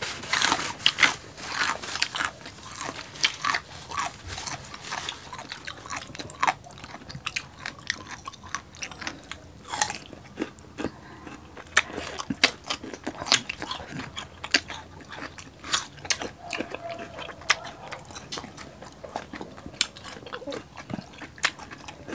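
Close-miked eating sounds of two people: chewing and biting food, with many irregular sharp mouth clicks and crunches, thickest in the first few seconds.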